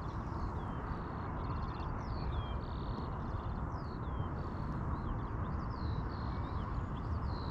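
Small birds singing nearby: a continuous run of short chirps, buzzy notes and falling whistled slurs, over a steady low rushing background noise.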